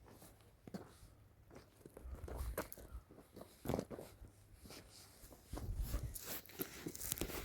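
Irregular crunching and rustling with scattered sharp clicks and low thumps, busier and louder near the end.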